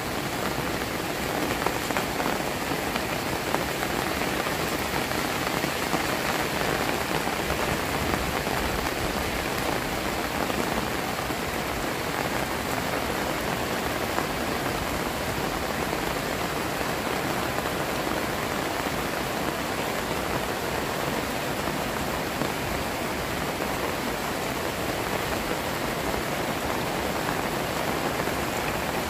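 Heavy rain falling steadily onto standing floodwater, an even, unbroken hiss.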